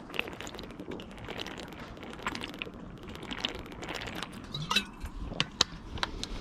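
Hands working on the van during an oil change: a run of small irregular clicks, clinks and rustles, with a few sharper clicks about five seconds in.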